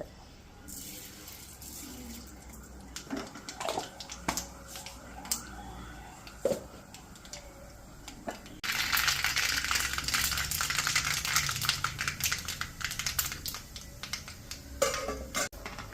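Mustard and fenugreek seeds frying in hot coconut oil in a pan. At first there are scattered sharp pops. About eight and a half seconds in, a loud, dense crackling sizzle begins suddenly as the seeds splutter, and it dies down near the end.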